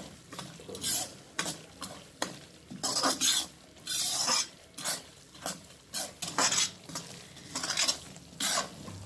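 A perforated steel spoon scraping and stirring coarsely ground moong dal around a metal kadhai in repeated strokes, about one or two a second, as the dal roasts in ghee and begins to puff.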